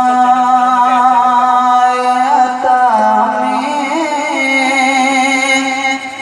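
A man singing a naat into a microphone, drawing out long held notes with slow melodic turns on one line of the verse. The voice drops away just before the end.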